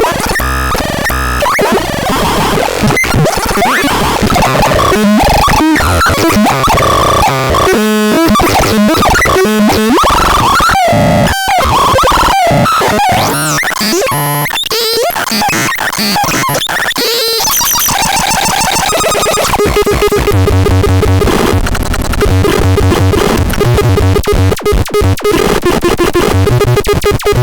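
Synthesizer making harsh, noisy, chaotic sounds with sweeping pitches and sudden cut-offs. About two-thirds of the way in it changes to a fast repeating pulsing pattern over steady low notes.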